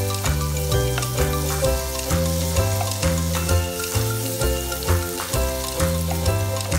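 Butter sizzling and bubbling as it melts in a non-stick frying pan, stirred with a wooden spatula, under background music with a steady beat and bass line.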